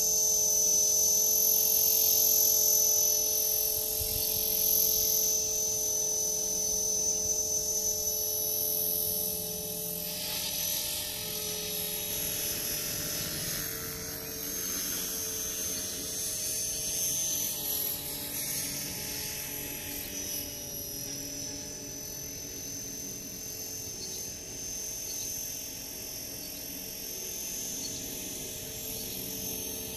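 Blade 450 3D electric RC helicopter in flight: a steady high whine from its motor and rotors. The pitch shifts midway as it manoeuvres, and the sound grows fainter after the first few seconds as it flies farther off.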